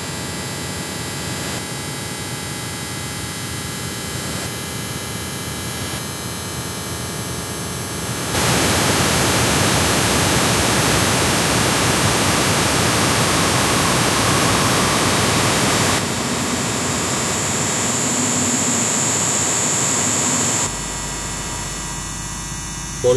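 Harsh electronic noise music: a dense wall of static-like hiss that changes abruptly in blocks. It jumps louder about eight seconds in, shifts again at about sixteen seconds with a steady high whine added, and drops back shortly before the end.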